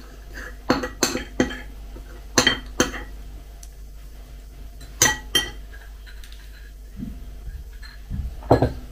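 Metal spoon clinking and scraping against a ceramic bowl while eating soaked cereal with kefir: several sharp, ringing clinks in small clusters.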